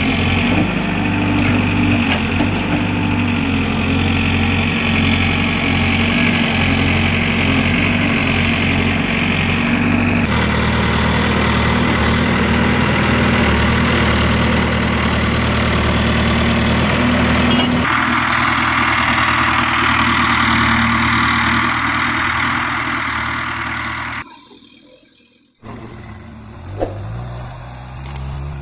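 Case 851EX backhoe loader's diesel engine running steadily as it digs and loads soil. The engine sound changes character abruptly twice and cuts out briefly near the end.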